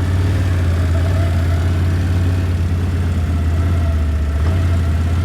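Four-wheeler (ATV) engine running at a steady speed while being ridden.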